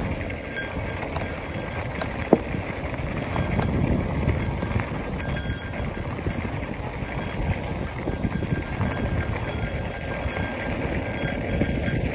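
Mountain bike rolling fast over a dirt singletrack: tyre noise on dirt and the bike rattling and clicking over bumps, with wind rushing over the microphone. One sharp knock about two seconds in.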